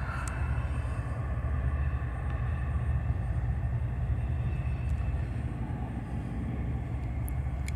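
Wind buffeting the microphone in a steady low rumble, over the faint running of a freight train's diesel locomotives approaching in the distance.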